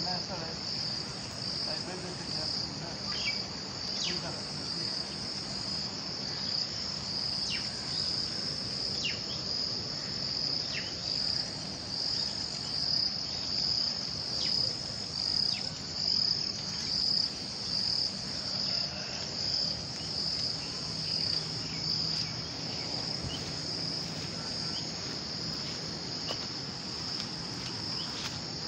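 Chorus of insects in the grass, a steady high-pitched trill that swells and fades about once a second.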